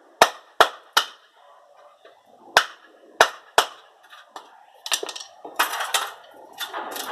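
Sharp metal-on-metal strikes, hammer blows on a freshly welded steel piece: about six ringing knocks over the first few seconds, then a rougher run of scraping and clattering from about five seconds in.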